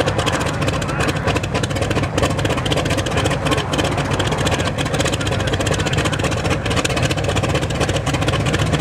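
Gee Bee air racer's piston engine idling steadily just after start-up, its propeller turning.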